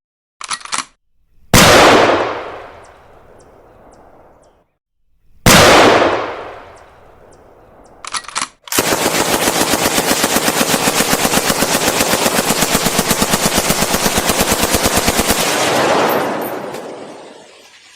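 Machine gun sound effects. There is brief mechanical clicking, then a loud blast that rings away over a few seconds. A second blast follows about four seconds later, then more clicking, then about seven seconds of rapid automatic fire that dies away in a long echoing tail.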